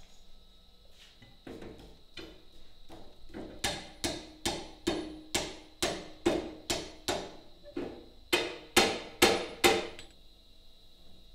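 Blacksmith's hand hammer striking a white-hot iron ring on the anvil to forge-weld its joint: a few light taps, then a steady run of blows at a little over two a second, each with a short metallic ring, the loudest near the end, stopping about a second before the close.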